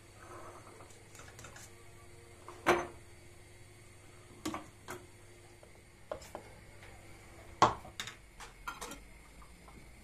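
Kitchenware clinking as fig jam is ladled from a steel pot through a plastic funnel into a glass jar: a metal spoon knocks against the pot rim, funnel and jar. About eight sharp clinks and knocks, the loudest about three seconds in and again about seven and a half seconds in.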